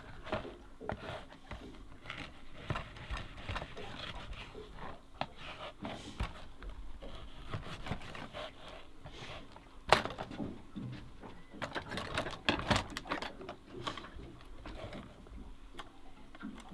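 Knife cutting partly frozen salmon into bait chunks on a plastic cutting board: scattered clicks and knocks, the sharpest about ten seconds in, with a quick run of them a little later.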